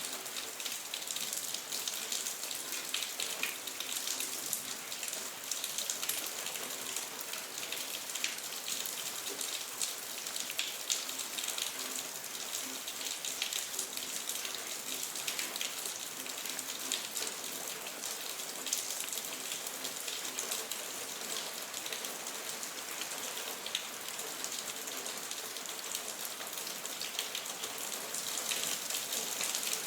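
Steady rain falling, with many close individual drops heard as sharp ticks over an even hiss.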